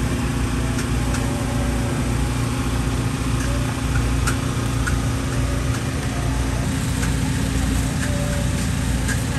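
A steady low engine hum runs throughout, under a few sharp knocks of a cleaver chopping spring rolls on a wooden board; the clearest knock comes about four seconds in.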